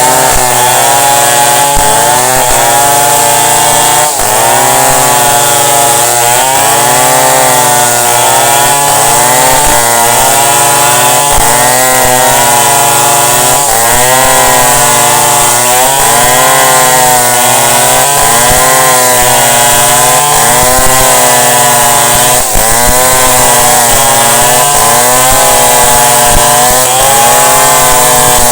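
Chainsaw running loudly while cutting wood, its engine note sagging and picking up again over and over as the chain bites and frees.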